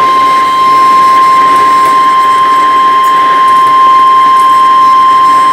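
Emergency alert warning tone: one loud, steady tone near 1 kHz, the 1050 Hz NOAA Weather Radio alarm, held unbroken over a faint hiss. It is the alert signal that precedes a severe thunderstorm warning broadcast.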